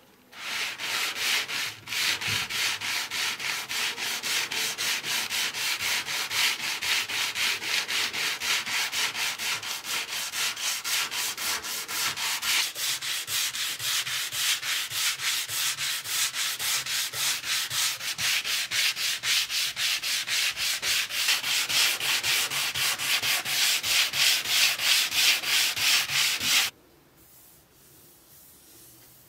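Sanding sponge rubbed back and forth over an old wooden plane body in quick, even strokes, about three or four a second. It stops suddenly a couple of seconds before the end.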